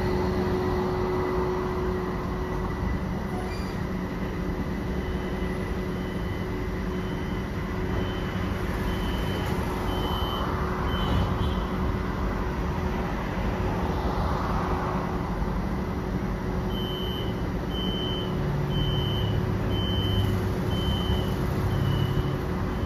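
Hexi line tram standing at a platform, its equipment humming steadily over a low rumble of traffic. A high electronic beep repeats about once a second, in one run of several seconds and a second run later on.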